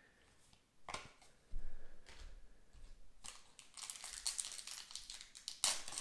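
A single knock about a second in, then a foil trading-card booster-pack wrapper crinkling as it is handled and opened, loudest near the end.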